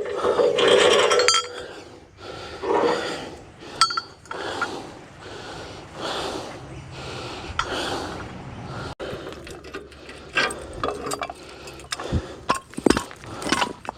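Irregular metallic clinks and knocks of gear being handled, with a louder drawn-out sound in the first second or so and several sharp knocks near the end.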